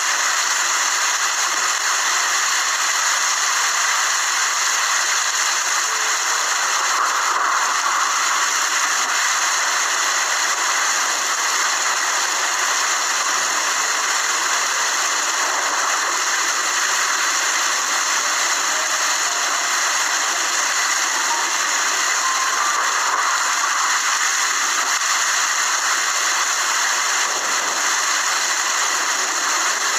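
Steady rain falling: an even, unbroken hiss with no distinct drops or thunder.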